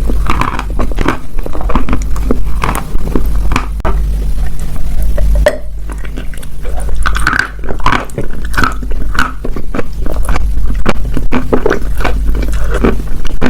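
Dry clay crunching and crumbling close to the microphone, in quick irregular crunches with a crackly edge, over a steady low hum.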